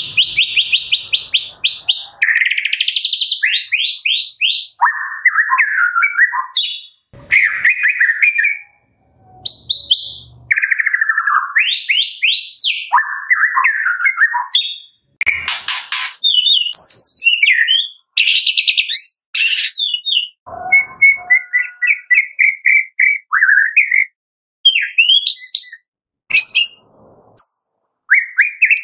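White-rumped shama singing a varied, fast song of phrases separated by short pauses: rapid trills, rising and falling whistled glides and buzzy notes. Two harsh, noisy notes come about halfway through and a few seconds later.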